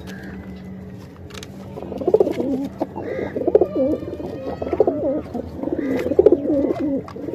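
Domestic pigeons cooing: low, wavering coos that start about two seconds in and repeat over and over, with a few faint higher chirps among them.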